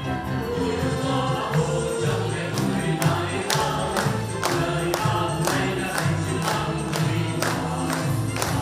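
Choral song with instrumental accompaniment: a group of voices singing over music, with a steady beat that comes in about two seconds in.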